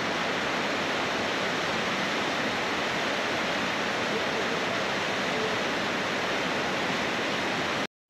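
Mountain stream rushing over boulders in small cascades: a steady, even rush of water that cuts off abruptly at the very end.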